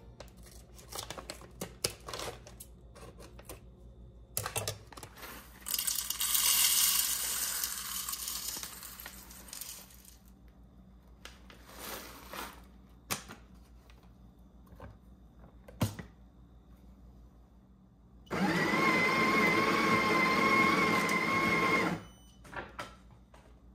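Kitchen work: scattered light knocks and clicks, a hiss lasting about four seconds, then a small electric kitchen appliance motor that spins up and runs steadily with a whine for about four seconds before cutting off near the end.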